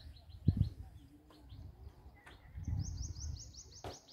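A small bird calling in rapid runs of short high chirps, about five a second. One run fades out in the first half-second, and a higher-pitched run starts about two and a half seconds in. Low muffled thumps on the microphone come and go underneath.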